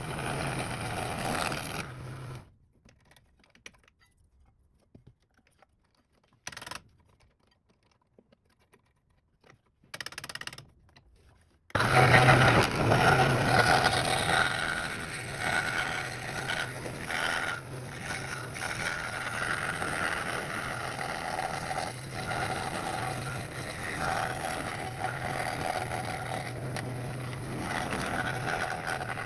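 Woodworking power tool running with a steady hum and the noise of working wood. It stops about two seconds in, leaving near silence broken by two brief sounds, then starts again abruptly about twelve seconds in and keeps running.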